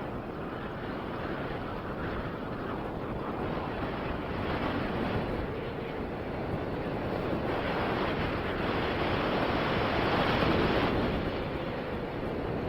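Wind buffeting the microphone during a downhill ski run, over the steady hiss of skis sliding on snow. It grows louder about seven seconds in and eases again near the end.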